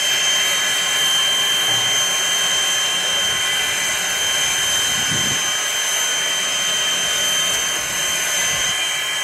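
Canadian National 2-6-0 steam locomotive No. 89 standing with a steady hiss of escaping steam, with thin high whining tones running through it.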